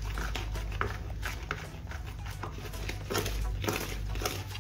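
A wooden spoon beating cake batter in a plastic bowl: a quick run of short scraping and tapping strokes, about two or three a second, over a low steady hum.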